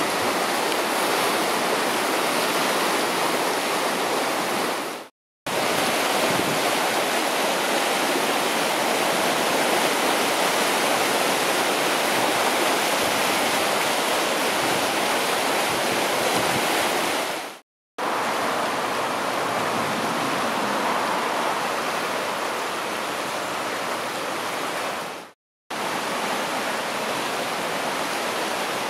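A river in flood, its brown water rushing fast over rapids in a steady wash of white-water noise. The sound cuts out completely for a moment three times.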